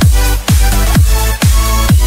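Electronic dance music with a steady, pounding kick drum at about two beats a second.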